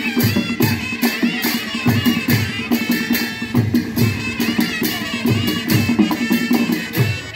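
Folk dance music: a steady drum beat under a low held drone, with a wavering melody on top.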